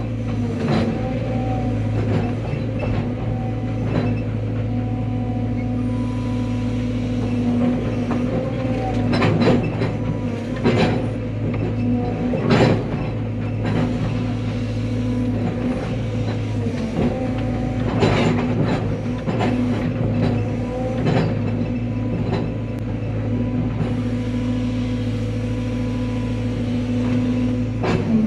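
Cat 320 excavator's diesel engine running steadily under throttle, heard from the machine, with a series of sharp knocks and cracks through the middle as the excavator works.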